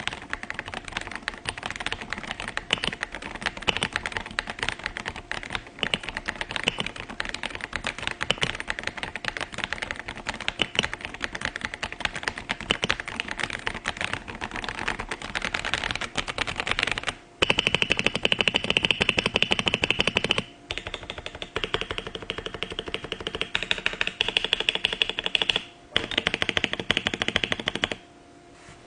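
Fast typing on an AJAZZ Firstblood B81 acrylic mechanical keyboard with factory-lubricated switches: a dense, continuous clatter of keystrokes. It stops briefly three times in the second half, and the later runs sound brighter and sharper.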